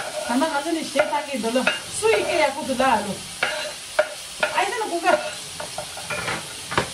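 Food frying in a pan while it is stirred, with a metal utensil scraping and knocking against the pan several times.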